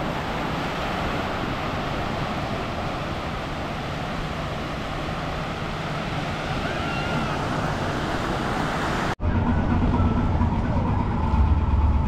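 Small waves breaking and washing up the sand, a steady surf hiss. About nine seconds in it cuts off abruptly to a city street with a low rumble of traffic.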